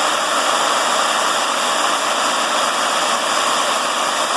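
Electric drill motor running steadily while a center drill bores a pilot hole into a broken cylinder-head bolt: an even, loud hiss with a faint steady whine.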